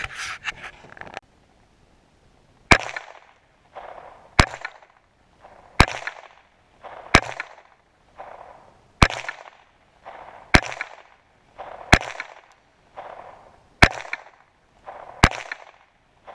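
Nine .22 rimfire shots fired in steady semi-automatic succession, about one every one and a half seconds. Each is a sharp crack with a short echo, and there is a brief rattle in the first second.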